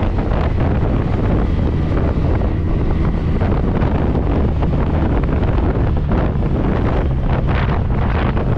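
Wind buffeting the microphone on a moving motorcycle, a steady low rush over the sound of the motorcycle running, with a few brief gusts near the end.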